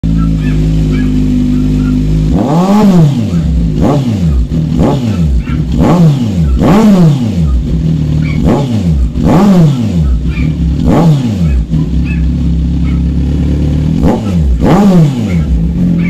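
Kawasaki Z1000's inline-four engine through an Orion muffler on its catalytic-delete stock pipe, idling steadily, then revved in about ten quick throttle blips, each rising and falling in pitch, starting about two seconds in.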